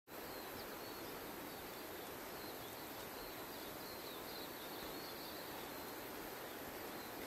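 Steady, quiet forest ambience: an even hiss, with faint high-pitched chirping wavering through it for a few seconds in the middle.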